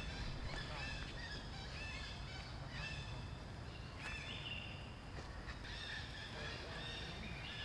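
Monkeys calling: a run of short, high-pitched calls, a few each second at times, over a low rumble.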